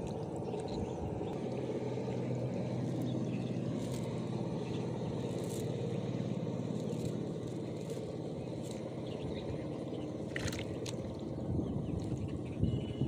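River water lapping and sloshing around a man standing in it as he works fish out of a wet nylon cast net, with a steady low hum underneath and a few faint light clicks.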